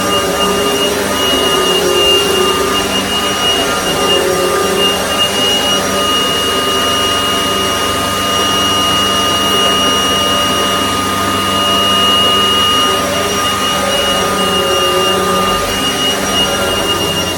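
Miele S183 PowerHouse bagged upright vacuum cleaner, a rebranded Panasonic with a 12-amp motor, running steadily. It gives a high motor whine over a lower hum that wavers slightly in pitch.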